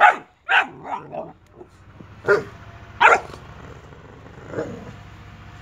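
Boxer dog barking in short, sharp barks: a quick run of four in the first second or so, two more a second apart, and a fainter one near the end.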